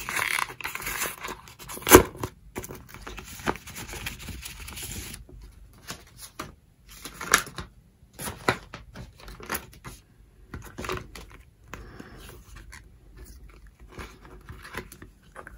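A large white paper envelope being torn open, rustling, with one sharp snap about two seconds in. The papers and booklet inside are then pulled out and handled, rustling on and off.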